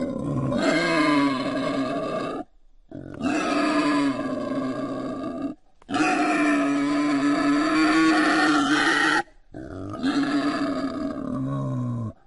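Wild boar calling: four long, drawn-out pitched calls of a few seconds each, broken by short, abrupt pauses.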